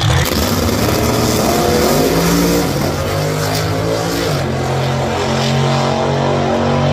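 Drag racing car launching hard off the start line and accelerating away down the strip at full throttle, its engine note stepping in pitch a few times as it pulls away.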